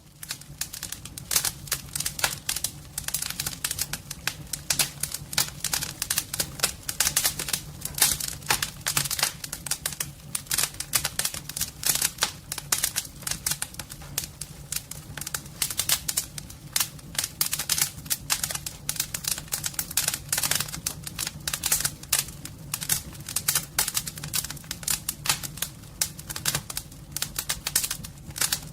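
Wood fire crackling in a fireplace, a dense run of irregular pops and snaps, over a steady low hum.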